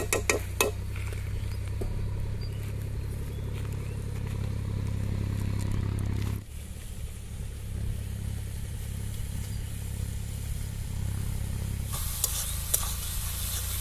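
Onion and ground-spice masala with a little water sizzling and bubbling in a pan as it cooks down, over a steady low hum. A few sharp spatula clicks come near the start and again near the end, and the sound drops briefly about halfway through.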